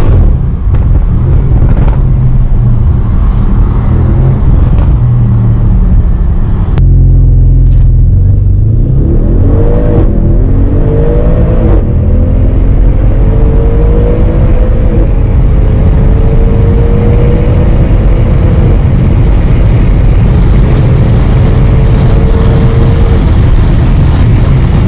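Audi RS6's twin-turbo V8, heard from inside the cabin: it runs at low revs for the first third, then accelerates hard through the gears. The rising engine note breaks at a few quick upshifts, and the last gear pulls long and steadily until near the end.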